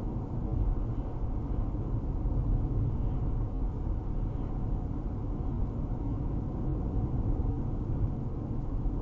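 Car cruising at about 55 mph, heard inside the cabin as a steady low rumble of road and engine noise.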